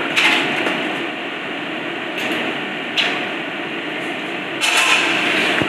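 A metal utensil scraping and clinking in a stainless steel pot of cooked crab, with a few sharper clinks and a longer scrape near the end, over a steady background hiss.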